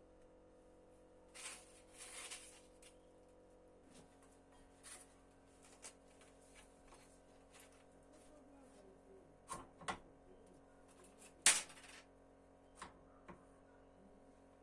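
Faint clicks and light clatter of small hard objects being handled over a low steady hum, with a short, sharper scrape-like burst late on.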